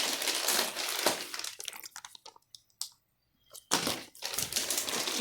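Plastic fish-shipping bags crinkling and crackling as they are handled, in two spells with a short quiet gap in the middle.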